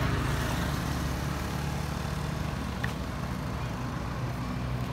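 A motor vehicle's engine humming low and steady.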